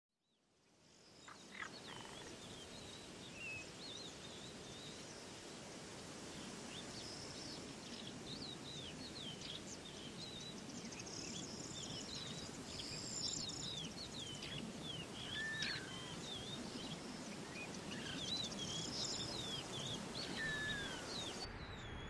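Birds chirping and calling over a steady outdoor background hiss, fading in from silence over the first second or two. The chirps stop shortly before the end.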